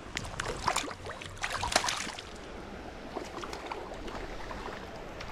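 Creek water running steadily, with a brief cluster of splashes and clicks in the first two seconds.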